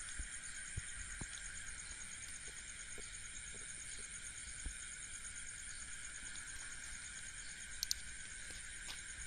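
Night chorus of crickets, a steady high trilling that does not let up, with a brief double click about eight seconds in.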